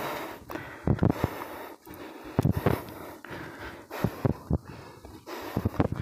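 A person breathing hard while climbing a steep slope, out of breath: irregular heavy breaths close to the microphone.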